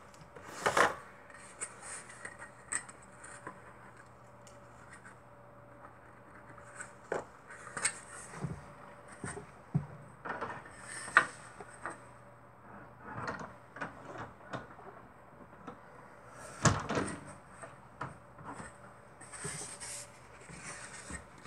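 Irregular knocks, taps and short scrapes from foam-core strips and framing tools being handled on a worktable. The louder knocks come about a second in, about eleven seconds in, and around seventeen seconds in.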